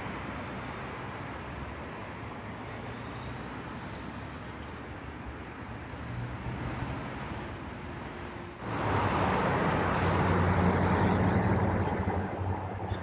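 Landing airliner's engine noise: a steady rush that jumps sharply louder about two-thirds of the way in, with a low drone underneath, for a few seconds.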